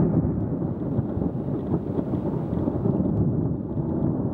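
Thunder from a lightning strike rumbling, a deep continuous roll without distinct cracks.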